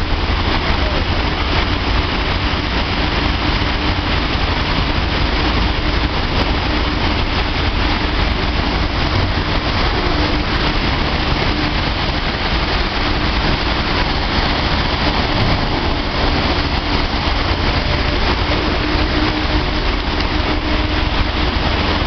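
A dryer running steadily: an even blowing noise over a low hum, with a faint steady tone above it.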